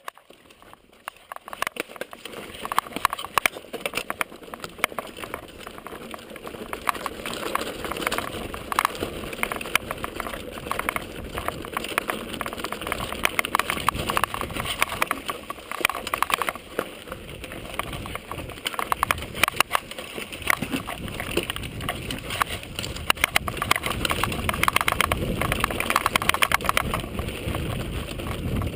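Footsteps on a rocky, gravelly trail: a continuous crunching and clattering of footfalls and loose stones, growing louder, with more low rumble, near the end.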